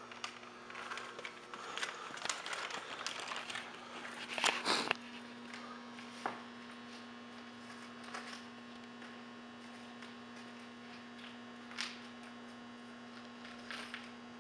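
Hardware being handled, with rustling and small metal clicks and a louder clatter about four and a half seconds in. Then a steady low hum, broken by a few faint crinkles and clicks of the plastic parts bag being handled.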